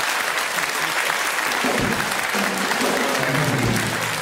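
Studio audience applauding, with music coming in about halfway through: a couple of low beats and held bass notes under the clapping.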